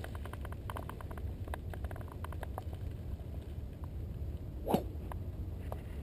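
A golf club strikes a ball off the tee once, a sharp crack about three-quarters of the way through, over a steady low rumble.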